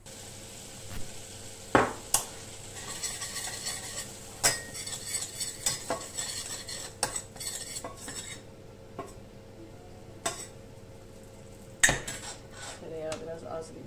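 Butter melting and sizzling in a pan on the stove, mostly in the middle stretch, while a metal spoon stirs it and clanks against the pan several times, sharpest about two seconds in and near the end.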